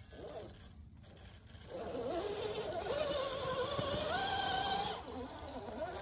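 1/10-scale RC rock crawler's Holmes Hobbies Crawlmaster Sport 13-turn brushed motor and gear transmission whining under load as it climbs rock. The whine starts about two seconds in, its pitch steps up about four seconds in, and it drops away about a second before the end.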